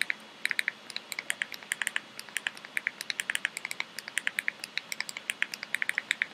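Rapid, uneven series of short clicks, several a second, as the cursor is stepped key by key across an on-screen keyboard with a remote control to type a search.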